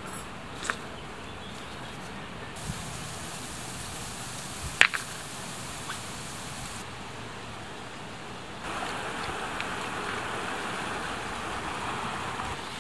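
Stones knocking against each other as they are set down on the edge of a tarp, a few sharp clacks with one much louder than the rest, over a steady outdoor hiss. About two-thirds of the way through, the even rush of a flowing river comes up and carries on.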